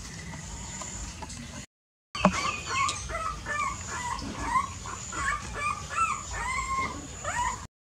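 Young puppies whimpering: a string of short, squeaky cries, about two a second, starting after a brief gap of silence about two seconds in.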